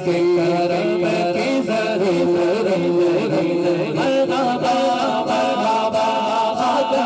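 Men singing a naat, an Urdu devotional song in praise of the Prophet, into microphones over a PA system. The singing is continuous, with long held notes and ornamented melodic turns.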